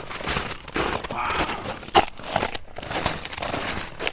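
Footsteps pushing through woodland brush: irregular rustling and crunching of dry leaves, twigs and old snow underfoot, with one sharp snap about two seconds in.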